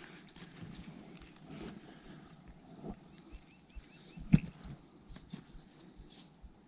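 Steady high-pitched drone of insects around the pond, with one sharp click about four seconds in.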